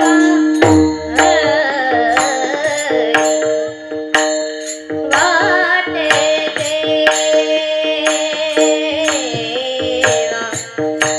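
Woman singing a Marathi devotional kirtan song into a microphone, with brass hand cymbals (taal) struck in a steady beat and drum accompaniment under held instrumental tones.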